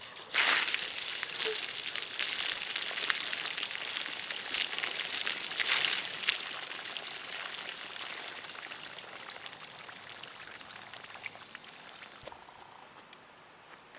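A load of water dumped over a person, splashing loudly for about six seconds and then trailing off. Crickets chirp steadily behind it.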